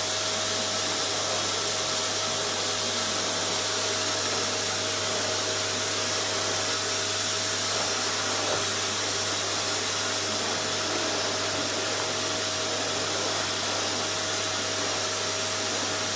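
Vacuum cleaner running steadily: a constant rushing hiss with a steady whine held over it.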